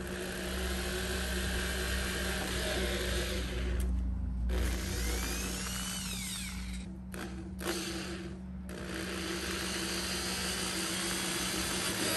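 Corded electric drill running as it bores holes through the plastic panel under the car's rear bumper. The motor speed rises and falls, and it stops briefly twice as the trigger is let off.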